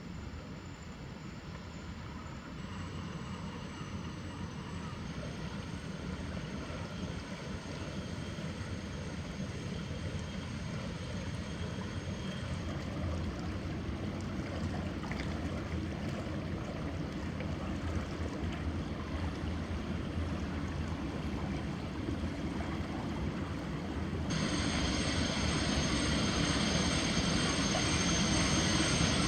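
Diesel engine of the 1939 motor cargo barge Harudha, a 1200 hp MaK, running steadily and growing louder as the vessel approaches. A high whine comes in near the end.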